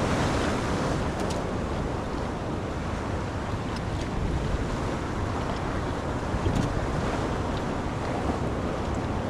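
Steady wind noise on the microphone over waves washing at the jetty, with a few faint ticks.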